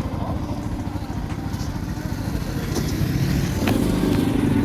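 A motor vehicle engine running close by with a low, rapidly pulsing rumble that grows a little louder in the second half.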